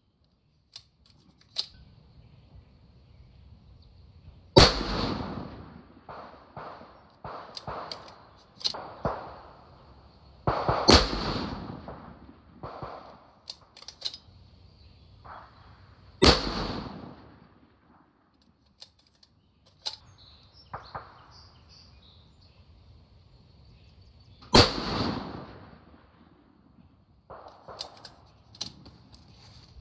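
Masterpiece Arms BA PMR Pro Rifle II, a 6mm Creedmoor bolt-action rifle, fired four times. The shots come about six seconds apart, with a longer gap before the last one, and smaller clicks and knocks fall between them.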